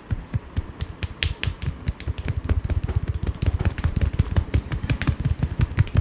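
Hands striking a person's body in fast percussive massage strokes: a rapid run of dull slaps and thumps, several a second, that gets denser and louder about two seconds in.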